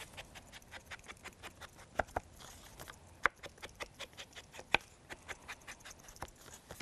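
Ink blending tool dabbed around the edges of a sheet of stamped paper: quick, irregular light taps, several a second, with a few louder ones.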